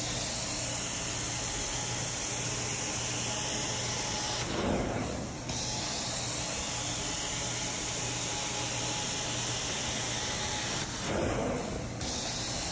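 Carpet-cleaning extraction wand working a rug: a steady rushing hiss of suction and spray over a low machine hum. The sound swells and dips twice, about five and eleven seconds in, as the wand makes its strokes.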